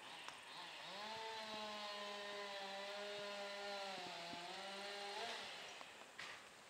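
Chainsaw cutting limbs. About a second in it revs up and holds a steady high pitch, sags slightly under load near the end of the cut, then drops off after about five seconds.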